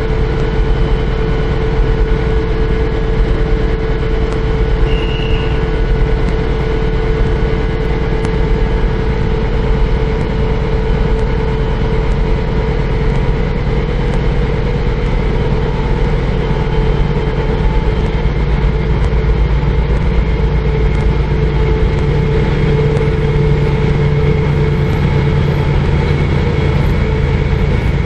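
Diesel engine of an SU46 locomotive running steadily, a low drone with a steady hum over it. In the second half the low note grows stronger as the locomotive moves slowly closer.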